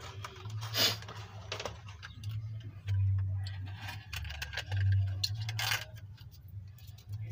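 Scattered metallic clicks and clinks of hand tools at work on the engine's spark plugs, over an on-and-off low hum.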